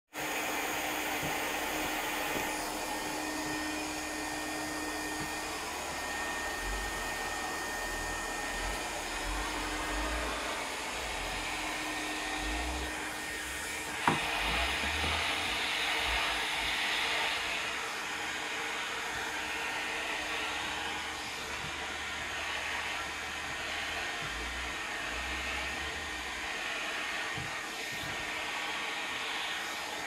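Vacuum cleaner running steadily, a constant rushing suction sound as the floor nozzle is pushed over a tiled floor. A single sharp knock about halfway through, after which the rushing brightens for a few seconds.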